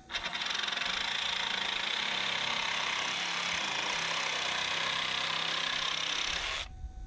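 Cordless jigsaw cutting through a fiber-cement (Hardie) trim board, running steadily at full speed and stopping abruptly near the end.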